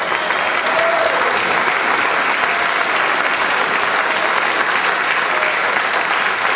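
Audience applauding steadily, a dense patter of many hands clapping, greeting a nominee as he is introduced.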